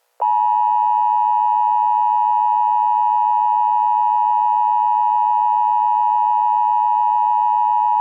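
Emergency Alert System attention signal: a loud, steady two-tone alarm (853 and 960 Hz together) that starts a moment in and holds without a break.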